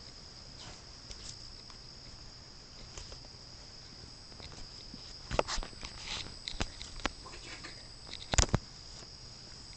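A person's stomach being pressed by hand, giving a few soft pops and squelches from about halfway on, the loudest a little before the end, over a faint steady high-pitched whine.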